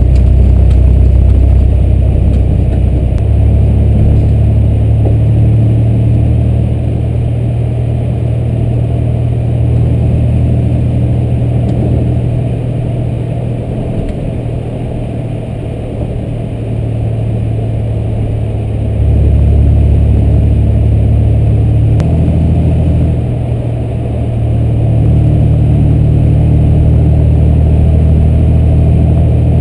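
A car's engine and tyre noise heard from inside the cabin while driving: a low, continuous drone whose pitch steps up and down a few times as the engine speed changes.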